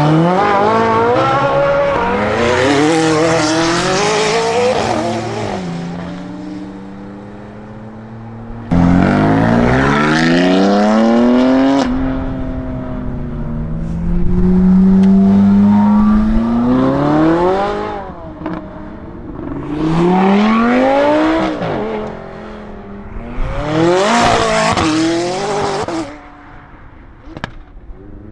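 Supercar engines accelerating hard in a run of separate pulls, each climbing in pitch through the revs and dropping back at the upshifts. The first is a Ferrari 458 Italia's V8 pulling away. The loudest pulls come about 9, 14 and 24 seconds in, and it is quieter near the end.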